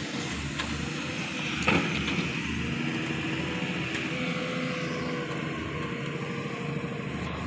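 Doosan 140 wheeled excavator's diesel engine running steadily under load as the bucket digs into soil. A single sharp knock comes a bit under two seconds in.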